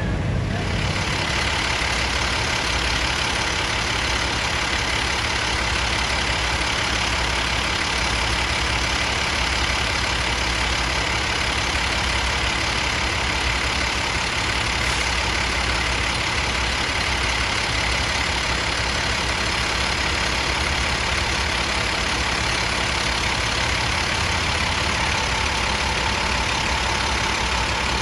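Heavy diesel truck engines idling steadily.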